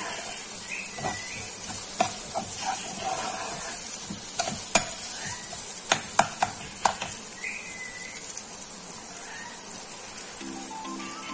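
Chopped onions sizzling in hot oil in a nonstick kadhai while a metal spoon stirs them, sautéing the onions. Sharp clinks and scrapes of the spoon against the pan come several times, most of them close together around the middle.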